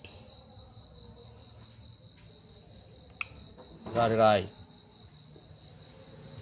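A steady, high-pitched, finely pulsing insect trill runs throughout. A single short click comes about three seconds in, and a brief voiced sound from a person about four seconds in, which is the loudest moment.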